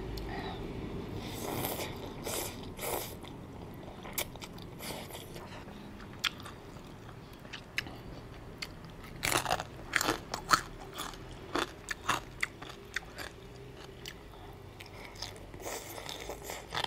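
Eating sounds: chewing with crisp, crunchy bites at an irregular pace. The loudest cluster of crunches comes about nine to eleven seconds in.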